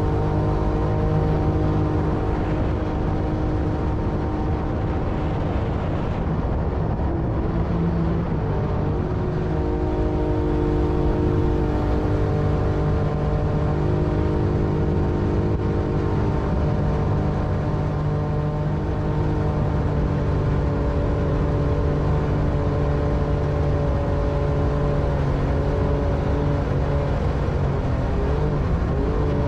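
Jet boat engine running steadily under way, with its note shifting slightly a couple of times.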